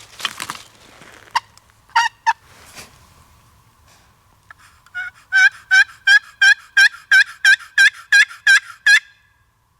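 Turkey yelping: a run of about a dozen evenly spaced yelps, about three a second, each note breaking from high to low, after a few short sharp clucks a second or two earlier.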